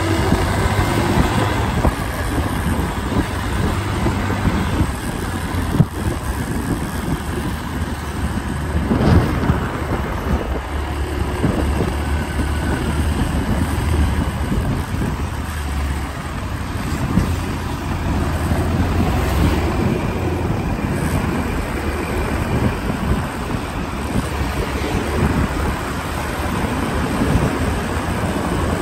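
Steady road noise of a vehicle driving through city traffic: a low engine and tyre rumble.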